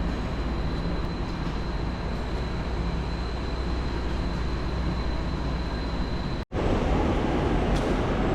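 Steady rumble and hiss of the Tren Maya train running, with a thin high whine over it. About six and a half seconds in, the sound drops out for an instant and comes back louder, without the whine.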